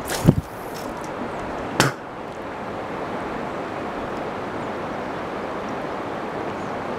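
Swish of a fishing rod cast near the start, then a sharp knock about a second and a half later, then steady wind noise on the microphone.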